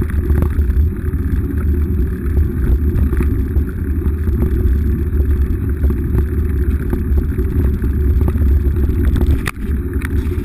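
Mountain bike rolling along a dirt track, heard through a bike-mounted GoPro: a steady low rumble of wind and tyres on the microphone, with scattered small clicks and rattles from the bike over the ground. A brief drop with a sharp click comes near the end.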